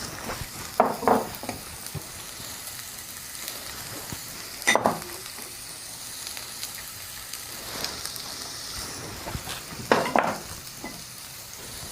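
Chopped vegetables sizzling in a little hot oil in a kadhai as they are stir-fried, with a steady sizzle and a few short clatters against the pan, the loudest about five seconds in and about ten seconds in.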